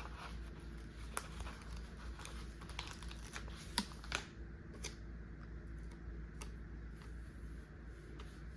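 Light, scattered clicks and taps of paper and sticker sheets being handled on a desk, a few a little sharper than the rest, over a faint steady low hum.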